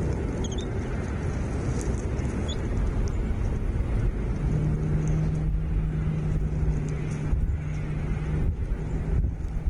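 Steady low outdoor rumble with a motor vehicle's engine hum coming in about halfway through, and a few faint high chirps in the first few seconds.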